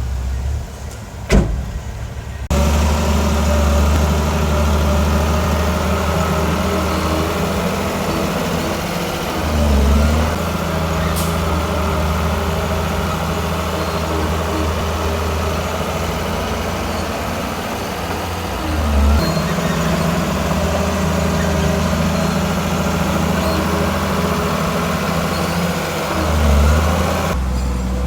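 Heavy diesel engine of a bulldozer running hard, its pitch sagging briefly three times as it takes load. A sharp knock sounds about a second in.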